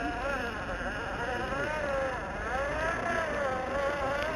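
Radio-controlled scale truck's electric drive motor and gearbox whining, the pitch rising and falling as the throttle varies while it crawls over rocks.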